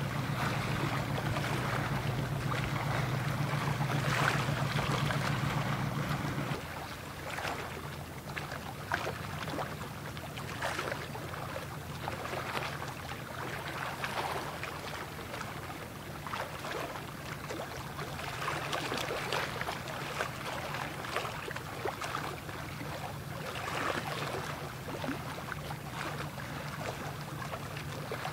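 Steady low drone of a ship's engine, with wind and water noise over it; the drone drops to a quieter level about six and a half seconds in.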